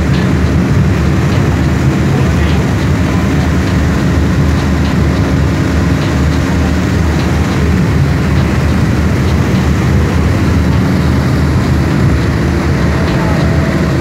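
Ferry's heavy diesel engines running steadily under way, a low drone over the rush of propeller-churned water.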